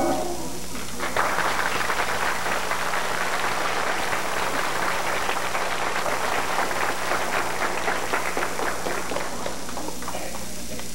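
Audience applauding, a dense steady clapping that starts about a second in, just after the music stops, and thins out near the end.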